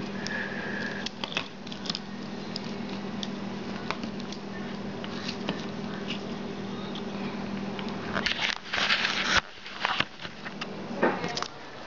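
Small clicks and wire rustles of fingers fumbling a 9-volt battery's snap connector onto its leads, over a low steady hum. About eight seconds in comes a loud scraping rustle of the camera being handled, and the hum stops soon after.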